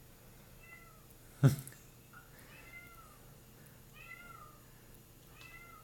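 Kitten meowing repeatedly: about five short meows, each rising then falling in pitch, roughly one a second. A single sharp thump about a second and a half in is the loudest sound.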